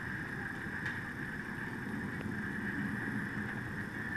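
Loaded railway hopper car rolling slowly over yard track: a steady low rumble with a steady hiss above it and a couple of faint clicks.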